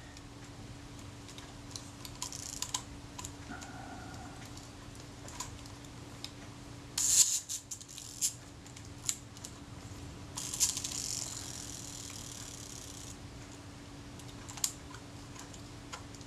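Small mechanical clicks and scrapes of the Kodak Retina Reflex IV's setting rings and dials being turned by hand, with a cluster of sharper clicks about seven seconds in and a short rasping scrape a few seconds later. A faint steady hum runs underneath.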